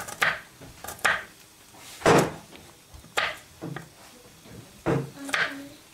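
Kitchen knife chopping garlic cloves on a wooden chopping board: irregular knocks of the blade striking the wood, spaced about half a second to a second apart.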